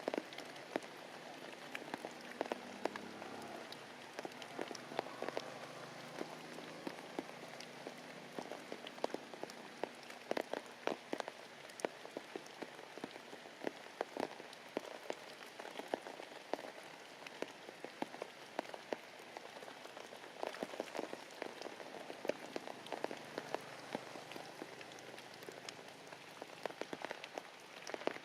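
Heavy rain falling steadily, with many irregular sharp drop impacts on a nearby surface.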